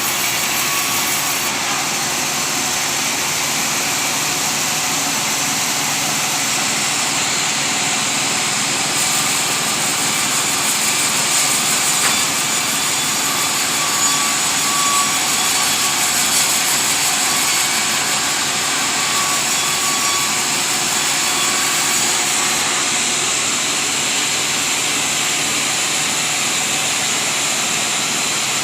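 Sawmill machinery running steadily with a loud, even noise.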